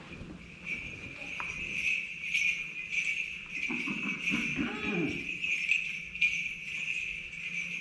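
Small metal bells on a swinging censer jingling continuously.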